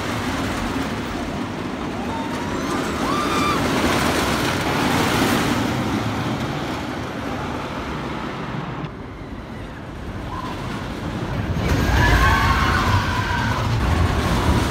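Wooden roller coaster train rumbling along its wooden track, with riders screaming about three seconds in and again near the end, when the train runs past close by and the rumble is loudest.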